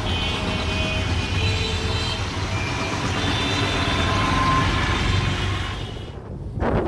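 Steady low engine rumble from idling vehicles, with a fuel dispenser running as a motorcycle's tank is filled. Near the end it cuts abruptly to wind rushing over the microphone.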